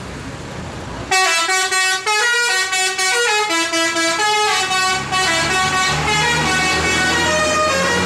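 Tour bus 'telolet' musical air horn playing a quick tune of stepped notes, starting about a second in after plain road noise. The bus's engine hums underneath in the second half.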